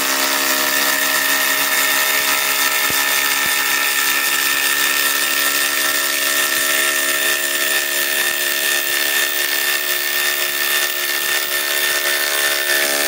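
Ryobi 2200 in-lb four-speed impact driver hammering a 6-inch lag screw into a wooden beam in one steady, unbroken run.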